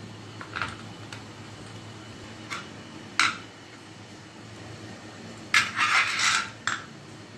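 A steel spoon and stainless steel idli mould plates clinking and scraping as idlis are scooped out and the plates are handled. A few separate clinks come first, then a short burst of louder clatters about five and a half seconds in.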